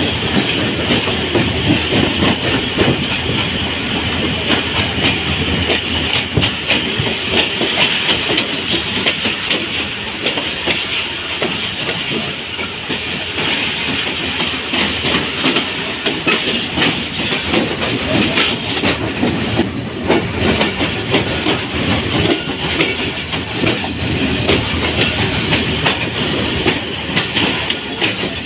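Passenger coach of a diesel-hauled express train running along the track, heard from the open coach doorway: a steady loud rumble of wheels on rail, with rapid clicking over the rail joints. There are two brief high-pitched hisses about two-thirds of the way through.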